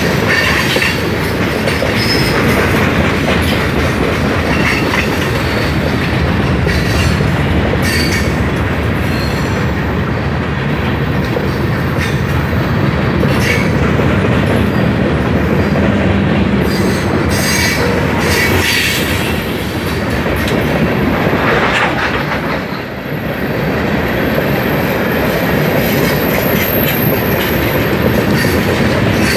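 Freight train tank cars and boxcars rolling past close by: a steady rumble of steel wheels on rail with repeated clicks over the rail joints. A thin high wheel squeal comes in near the end.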